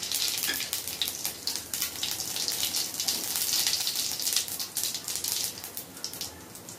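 Cumin seeds sizzling and crackling in hot oil in an aluminium kadhai as a tempering (baghar) is started. It is a dense crackle of small pops that thins out over the last couple of seconds.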